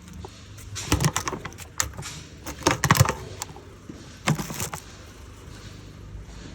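Three short bursts of rattling, clattering clicks from hard objects knocking together, over a steady low background hum.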